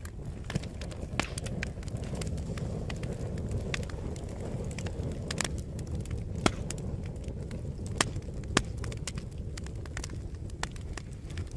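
A fire burning: a steady low roar of flames with irregular sharp crackles and pops from the burning wood, a few louder snaps about six and a half and eight seconds in.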